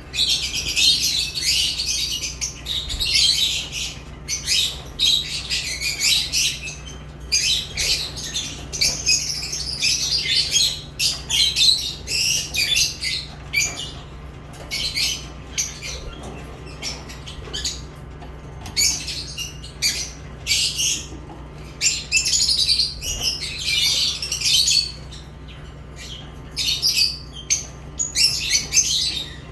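Lovebirds chirping: rapid, high-pitched chirps in dense bursts broken by short gaps, over a faint steady low hum.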